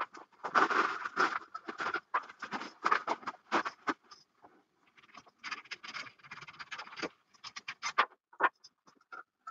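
Rustling and scraping of packaging and equipment being handled on a table, in dense bursts for about seven seconds, then a few separate clicks near the end.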